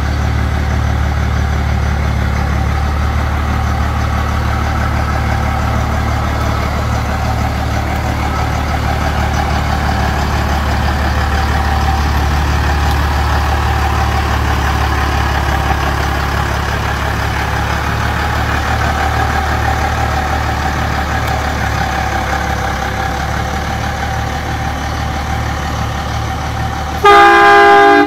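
Cummins 12-valve 5.9 L straight-six diesel in a Ford F-350 running steadily as the truck drives slowly. Near the end a horn sounds loudly for about a second.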